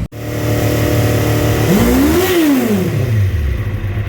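1973 Honda CL350's air-cooled parallel-twin engine running at idle, blipped once about two seconds in. The revs rise and fall back to idle as it is warmed up for a compression test.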